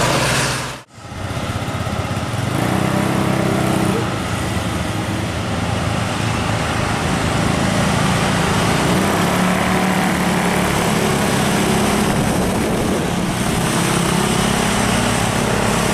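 Road traffic: vehicle engines running steadily with a low drone and road noise, cutting out abruptly for a moment about a second in and then carrying on.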